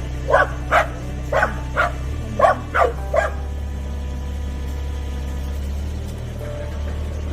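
A dog barks seven times in quick succession during the first three seconds or so, over the steady low running of a mini excavator's engine.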